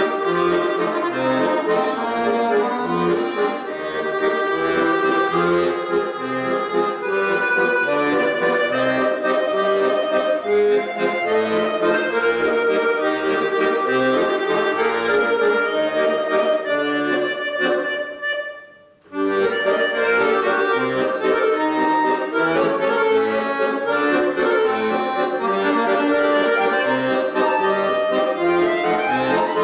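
Solo accordion playing a lively piece with many quick notes, breaking off for a brief pause a little past halfway before the playing resumes.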